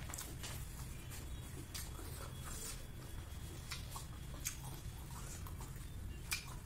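Close-up mukbang eating sounds: chewing with many small wet mouth clicks and crackles, and a couple of sharper clicks, over a steady low hum.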